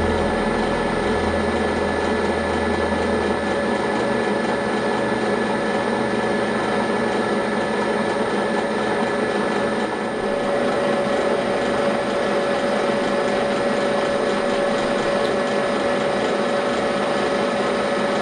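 Turret milling machine running with a boring head in the spindle, boring out a hole in a valve-gear part: a steady motor-and-spindle whine with cutting noise. The whine grows a little stronger about ten seconds in.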